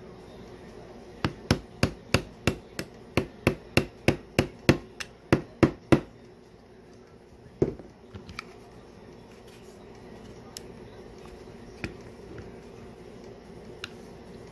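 Mallet tapping a pin punch to drive a tight pin out of a Glock 17 Gen 5 frame: a quick run of about fifteen sharp taps, roughly three a second, then one more strike and a few faint clicks.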